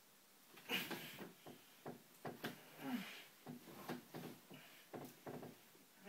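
A person tied with rope rolling and straining on a bed: irregular rustling and soft knocks of the body on the mattress and sheet, with a short falling grunt about three seconds in.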